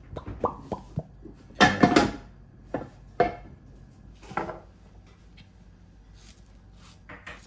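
Kitchen clatter: dishes and utensils knocking together while a sauce is being made, with the loudest clatter about two seconds in and a few single knocks after.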